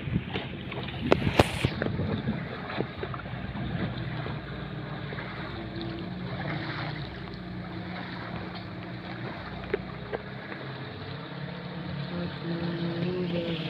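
Small wooden fishing boat's engine running steadily at trolling speed, with wind buffeting the microphone and water rushing along the hull. A few sharp knocks and a gust come in the first two seconds.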